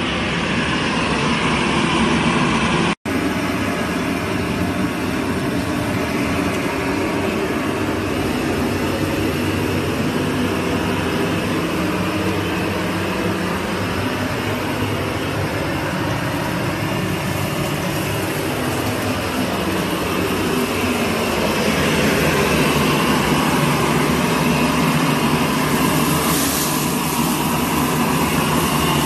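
Steady rushing roar of a commercial kitchen's gas range with high flames under the pans. The roar cuts out for an instant about three seconds in and grows a little louder and brighter near the end.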